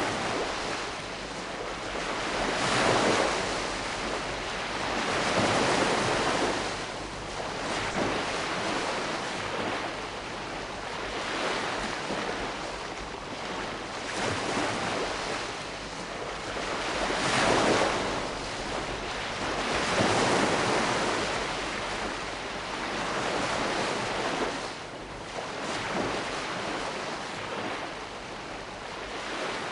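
Calm sea: small waves washing onto the shore, each swell rising and falling away every few seconds over a steady hiss of water.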